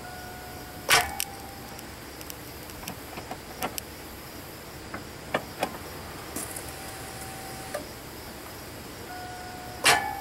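Scattered sharp clicks and clinks of a hand tool and socket working on a spark plug deep in an engine bay, with two louder knocks about a second in and near the end. A faint steady tone comes and goes behind them.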